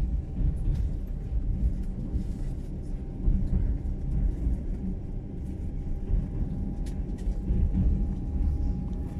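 Passenger train running, the steady low rumble of the wheels and carriage heard from inside the car, with a faint steady hum and a few light clicks.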